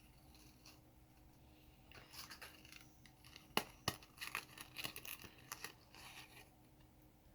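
Faint rustling and crinkling as a small mesh bag is opened by hand, starting about two seconds in, with two sharp clicks near the middle.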